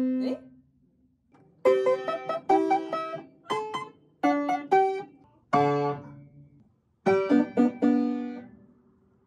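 Upright piano played by hand: slow, halting chords, each left to ring and fade. There is a silent pause about a second in and short gaps between phrases.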